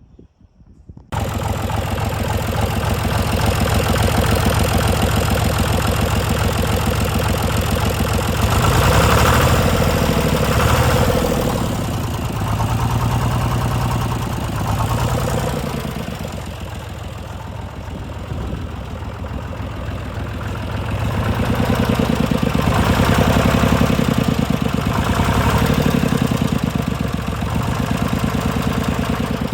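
John Deere 2155 tractor's three-cylinder diesel engine running. It comes in suddenly about a second in, and its speed rises and falls twice, once about a third of the way through and again near the end.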